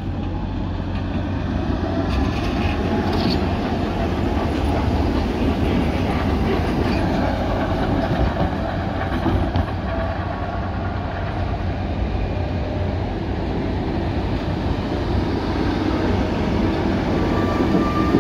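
A coupled Hägglunds M29 and ASEA M28 tram running on street track: a steady rumble of wheels on rail that grows a little louder near the end as it passes close.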